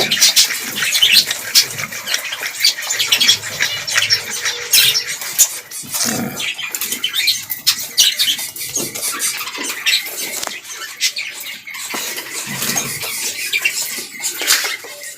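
A colony of about ten budgerigars chirping and chattering continuously, with scattered sharp clicks among the calls.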